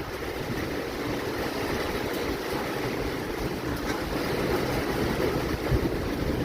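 Steady heavy rain falling, a continuous dense hiss, with wind buffeting the microphone in low rumbles.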